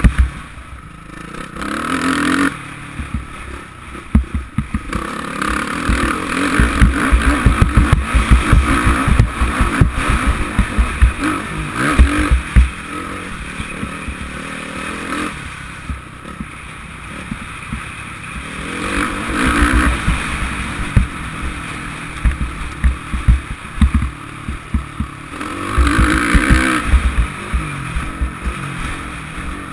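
Suzuki RM-Z450 four-stroke single-cylinder motocross engine revving up and down as the throttle opens and closes, loudest from about six to thirteen seconds in and again in short surges later. Dense low thumps and buffeting from wind and bumps on the rough track sound through the helmet-mounted microphone.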